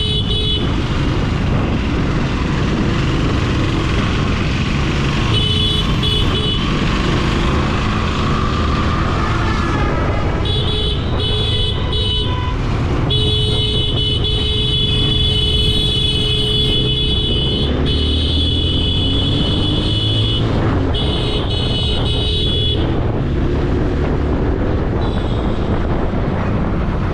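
Motorcycle riding through road traffic, with steady engine and wind rumble and vehicle horns honking repeatedly: a few short toots, one long honk of about four seconds in the middle, and another a little later.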